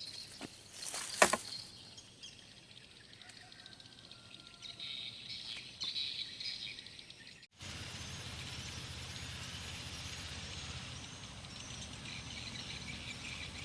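Outdoor ambience with birds chirping and insects calling, a single sharp knock about a second in, then an abrupt switch about halfway to a steadier, louder background with a low hum under the chirping.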